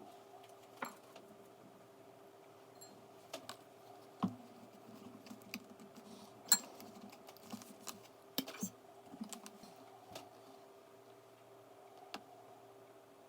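Scattered light clicks and clinks of kitchen utensils and dishes being handled, a dozen or so irregular taps with the sharpest about halfway through, over a faint steady hum.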